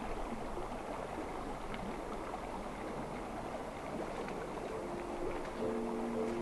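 A river flowing over stones, a steady rush of water with a few faint clicks. About five seconds in, a few held music notes come in over it.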